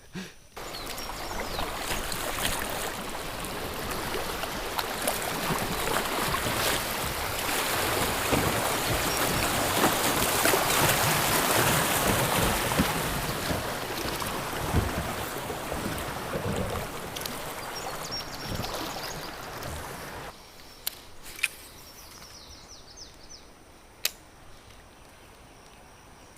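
Rushing, splashing river water as a kayak runs through a rapid, growing loudest about halfway through. It cuts off suddenly after about twenty seconds to quiet water, broken by a few sharp knocks.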